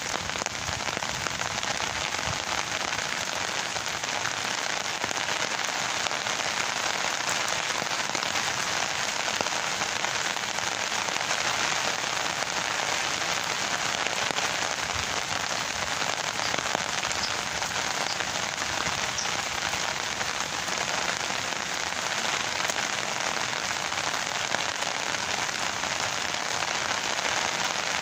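Steady rain falling on garden foliage and soil, a dense even hiss of many small drop impacts that holds at the same level throughout.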